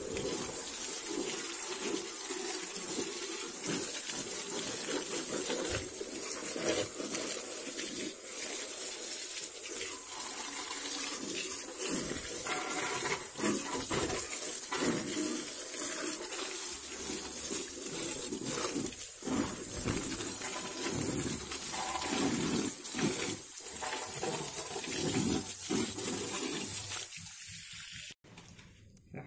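Jet of water from a hose spraying onto a motorcycle, a steady hiss and splatter against the bodywork, dropping away and cutting off near the end.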